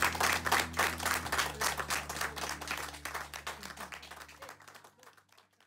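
A small audience applauding with dense, quick clapping that thins and fades away near the end.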